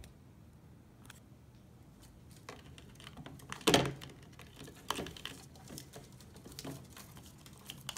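Sun conure pecking and biting at a plastic tape measure on a wooden table: scattered light taps and knocks, the loudest about three and a half seconds in.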